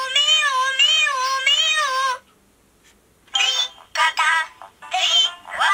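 Multi-Pulti talking plush cat toy's sound chip playing a high-pitched cartoon voice singing through its tiny speaker, thin with no bass. The song stops about two seconds in, and after a second's pause another voice clip starts.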